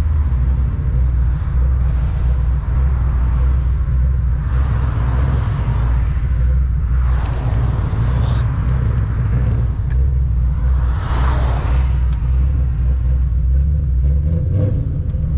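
Straight-piped Ford Mustang GT's 4.6-litre two-valve V8 with a catless X-pipe, droning steadily at highway cruise as heard from inside the cabin, with road noise. A rushing noise swells up a few times over the drone.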